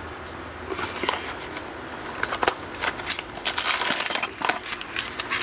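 Cardboard bearing-kit box being opened and plastic wrapping crinkled by hand: a run of crackles and small clicks that grows busier toward the end.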